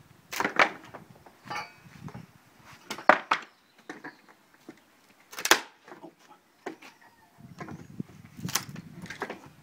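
Wooden pallet deck boards being levered off with a pallet buster bar: a string of sharp wooden cracks and knocks as the boards and their nails give way, the loudest about three seconds in and again about halfway.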